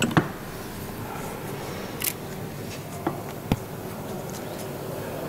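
A few faint, short metallic clicks and taps from hands and tools working a drive-shaft universal joint, over a steady low background hiss.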